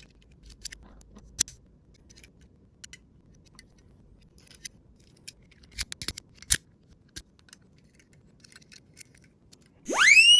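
Scattered light clicks and ticks from a Tomica die-cast toy police car on its slope, a few of them louder. Near the end a whistle-like sound effect sweeps sharply up in pitch.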